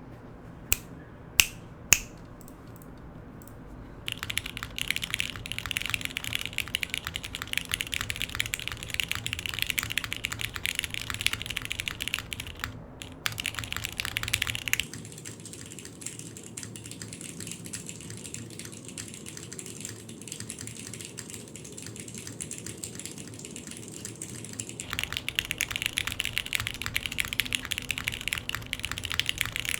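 Fast, continuous typing on a mechanical keyboard with linear Cherry MX Black Ultraglide switches (lubed, 60 g springs), a polycarbonate plate, gasket mount and GMK keycaps, making a clacky sound. It opens with three single sharp clicks before the typing starts a few seconds in. From about halfway to near the end the typing sounds duller and thinner, picked up by a phone's built-in mic.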